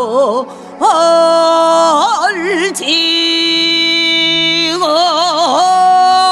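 Female pansori singer holding long vowel notes with wide, slow vibrato and sliding between pitches, over a steady low drone.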